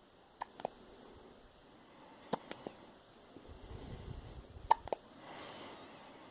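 Three sharp hiccups about two seconds apart, each followed closely by one or two fainter clicks, with a low rumble just before the third.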